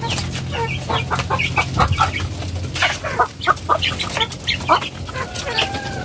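Chickens clucking: many short, irregular calls overlapping, over a steady low hum.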